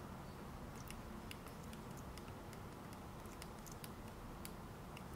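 Faint, irregular light clicks of computer keys and buttons, about a dozen over a few seconds, over a low steady hum.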